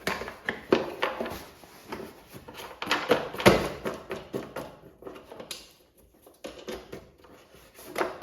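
Irregular clicks and knocks of the air filter cover being handled and fitted back over the new air filter on a lawn tractor's engine, with one louder knock about halfway through.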